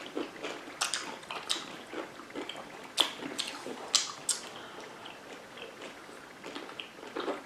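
Crunching and wet chewing of a sour pickle with whipped cream, in scattered short crisp bites and squelches, denser in the first few seconds.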